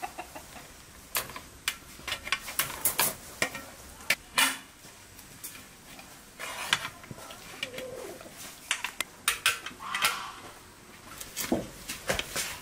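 Flat steel kebab skewers clinking and scraping against a metal tray as they are pushed through whole raw chickens: a run of irregular sharp clicks and knocks with short pauses between.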